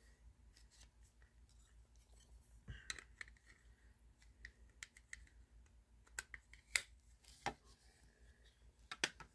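Faint scattered clicks and taps of baseball trading cards and their packs being handled, with a few sharper clicks in the second half.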